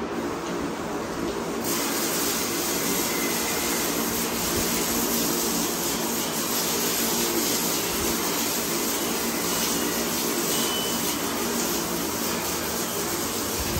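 Steady hiss of water spraying as the kennel floor is washed down, turning brighter and harsher about two seconds in.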